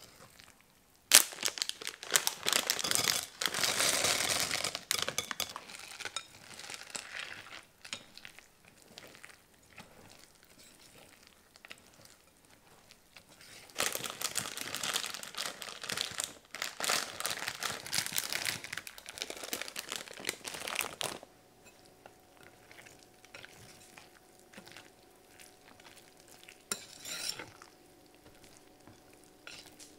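Wire balloon whisk stirring thick, wet oatmeal muffin batter in a glass bowl, scraping and clinking against the glass. It comes in two spells of several seconds each, with a quieter gap between them.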